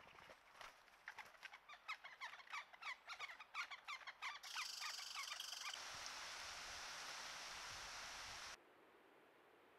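A bird calling in a rapid, irregular series of short, sharp notes for about the first four seconds. It is followed by a steady hiss that cuts off suddenly about eight and a half seconds in.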